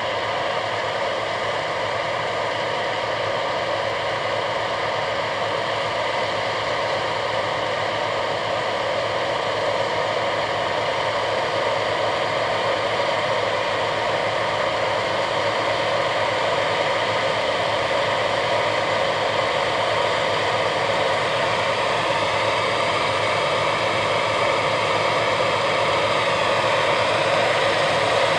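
A Gleaner S97 combine's 9.8-litre AGCO Power diesel and threshing machinery run with a steady drone while harvesting soybeans, growing slowly louder.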